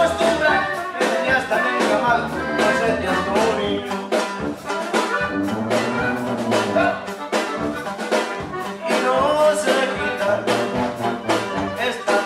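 A live norteño band with accordion, sousaphone, bajo sexto and drum kit playing a song, with a bouncing sousaphone bass line and a steady drum beat under the accordion.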